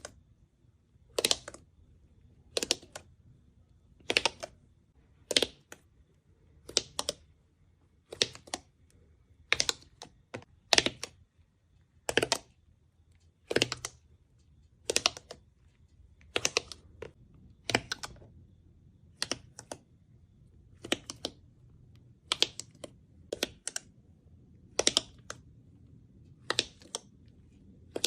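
Slime being pressed and worked by hand, giving sharp clicky pops about once every second and a half, some in quick pairs.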